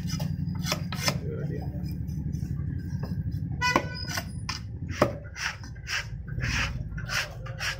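Knife strokes on a wooden chopping block, sharp irregular strikes as Indian mackerel are cut, over a steady low hum. A brief horn-like toot sounds about halfway through.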